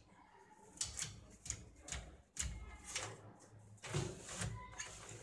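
A stainless steel wire kitchen basket being handled and slid onto its telescopic drawer channels, giving a series of sharp metal clicks and rattles with a short ring after some of them.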